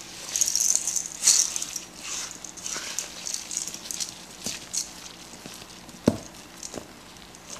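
Spoon stirring Grape-Nuts cereal into whipped cream in a bowl: irregular gritty scraping and rattling of the crunchy grains, with a single knock about six seconds in.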